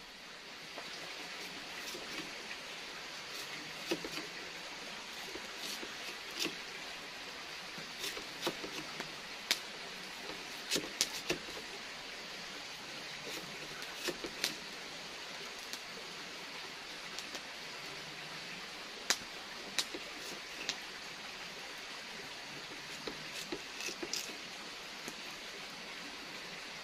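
Kitchen knife slicing a raw peeled potato into long strips against a wooden board, with irregular sharp clicks and taps as the blade cuts through and meets the board, over a steady background hiss.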